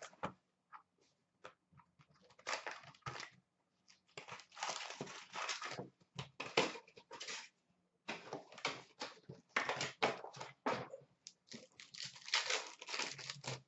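Hockey card packs being torn open and handled: irregular rustling, tearing and crinkling of the wrappers in bursts of about a second, with light clicks of cards being handled.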